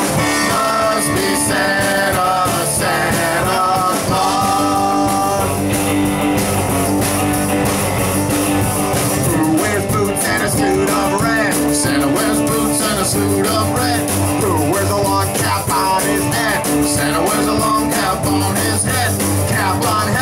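Live rock and roll band playing an instrumental break: a lead electric guitar plays stepped notes, then bent ones, over a walking upright bass, drums and rhythm guitar with a steady beat.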